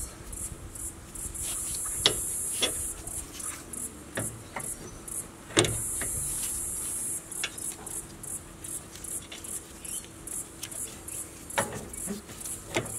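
Metal clinks and knocks of a rear disc-brake caliper and pads being handled and fitted back over the rotor. The knocks come every few seconds, the loudest about five and a half seconds in.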